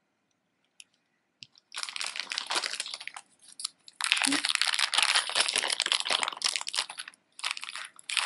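Small clear plastic zip bag crinkling as it is handled and opened, beginning a couple of seconds in after a near-silent start, with a brief pause partway through.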